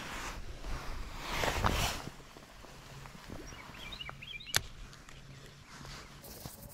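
Handling noise from a spinning rod and reel in gloved hands: a swell of rustling about a second and a half in and a single sharp click about four and a half seconds in, over a faint low hum. A few faint bird chirps come just before the click.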